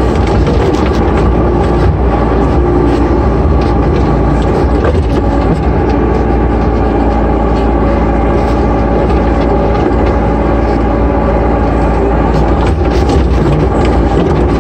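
Sunward 5-ton mini excavator working, heard from inside its cab: the diesel engine and hydraulics run steadily and loudly, with a few brief knocks as the boom and bucket move dirt.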